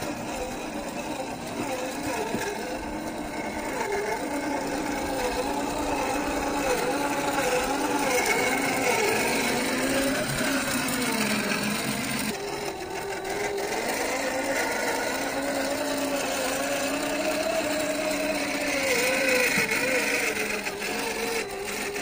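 Radio-controlled rock crawler's 550 brushed electric motor and gear drivetrain whining as it crawls over rock, the pitch rising and falling with the throttle. The sound breaks off and resumes about halfway through.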